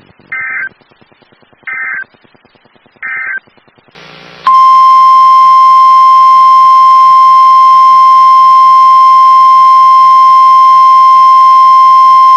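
Emergency Alert System audio: three short warbling digital data bursts, each about a third of a second long and spaced about a second and a half apart. These are the data bursts that end a message. About four and a half seconds in, a loud, steady single-pitch alert tone of about 1050 Hz, the NOAA Weather Radio warning alarm tone, starts, holds for about nine seconds and cuts off abruptly.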